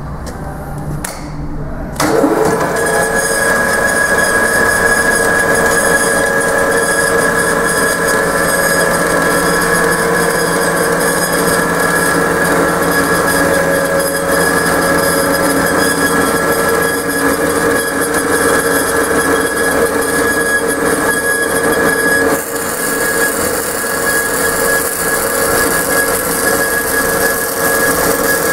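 Amada 10-inch horizontal automatic band saw starting up about two seconds in, then running steadily with a constant whine over mechanical noise. Near the end the sound changes, with more high-pitched hiss added.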